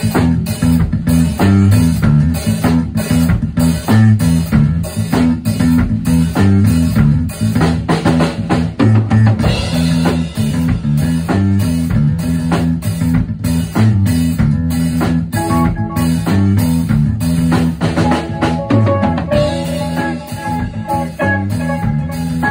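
Band playing a funk tune: drum kit keeping a steady beat under a repeating bass guitar line, with guitar notes coming forward near the end.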